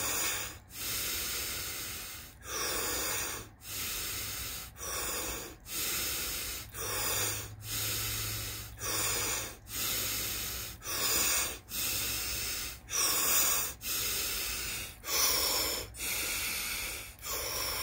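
A man's Wim Hof power breathing: full breaths in and out through the mouth, repeated in a steady rhythm about once a second.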